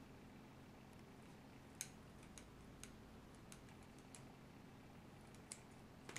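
Kitchen scissors snipping cooking twine: about half a dozen faint, sharp clicks at uneven intervals, the loudest about two seconds in, over a quiet room.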